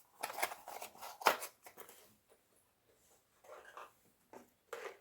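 Small items being handled and moved about: irregular rustling and light clicks, with one sharp click about a second in, then fainter handling noises.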